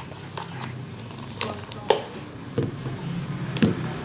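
Slime being squeezed and pressed by hand, giving a string of small, irregular pops and clicks, about seven in four seconds.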